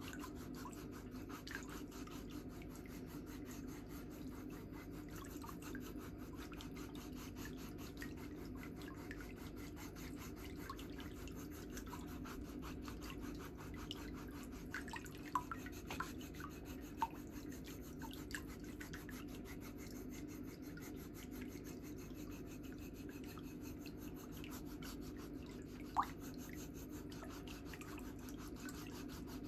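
Stainless steel foot file scraping steadily back and forth over the dry, flaky skin of a heel, over a steady low hum. A few sharp clicks stand out in the middle and near the end.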